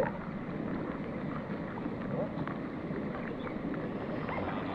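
Steady rain falling on the pond's surface and on a rain jacket: an even hiss of patter with many small ticks.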